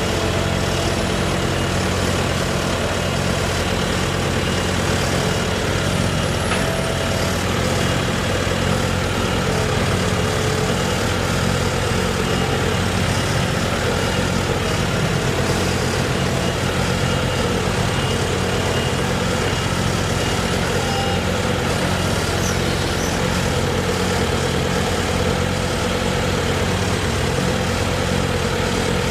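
A heavy engine idling steadily at one even speed.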